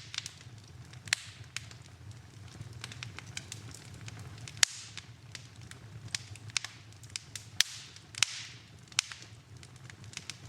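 Wood fire in a fireplace crackling, with irregular sharp pops over a steady low rumble of the flames. The loudest pop comes about four and a half seconds in, and short hisses follow a couple of the pops.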